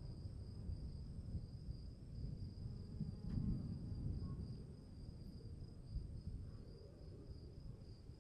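Afternoon storm ambience: a low, uneven rumble that swells about three and a half seconds in and then eases, under a steady high pulsing chirr of insects.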